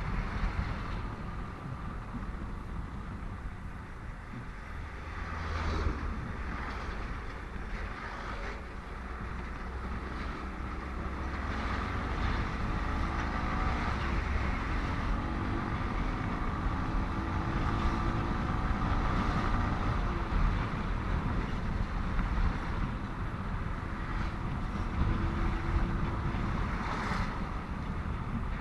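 Motorcycle riding along a busy highway: a steady rumble of engine and road noise with wind on the microphone, and other traffic swelling past now and then.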